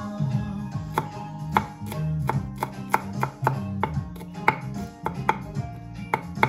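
Knife chopping food on a cutting board in quick, slightly uneven strokes, about three a second, over soft background music.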